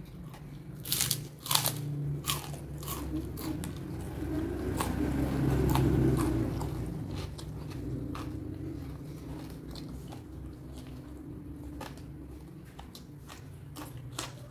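Close-up mouth sounds of a person biting and chewing crunchy food. There are sharp crunches, loudest about a second in, then steady chewing with scattered smaller crunches.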